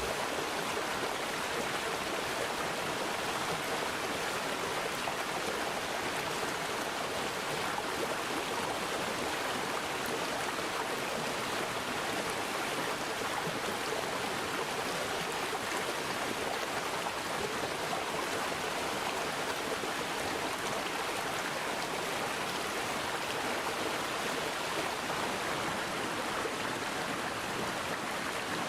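Mountain valley stream flowing over rocks, a steady rushing and gurgling of water.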